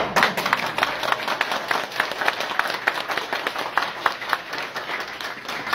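Audience clapping: a run of applause from many hands, thinning out near the end.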